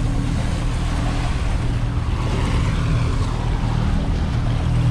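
A 200 hp outboard motor running steadily as the boat moves through the water, with wind and water noise rushing over it.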